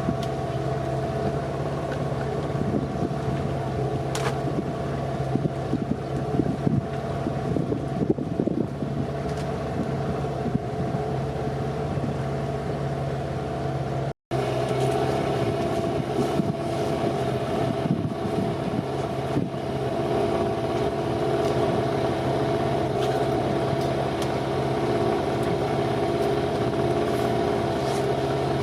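Motorboat engine running steadily under way, a constant droning hum, with a brief dropout about halfway through.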